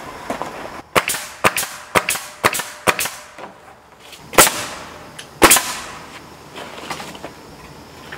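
Hammer blows on wooden strapping boards being nailed in place: six quick strikes about two a second, then two louder single strikes about a second apart, then a few lighter taps.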